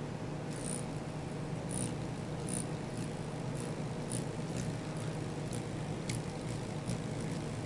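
Hummingbird giving a string of short, very high chip notes, about two a second, over a steady low background hum.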